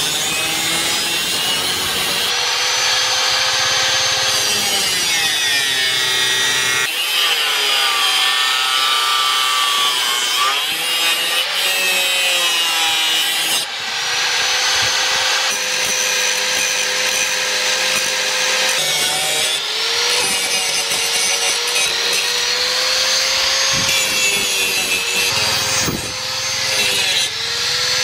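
Electric angle grinder running and grinding a steel leaf-spring knife blank: a high motor whine over a harsh grinding hiss. The whine falls and recovers in pitch several times as the disc is pressed into the metal.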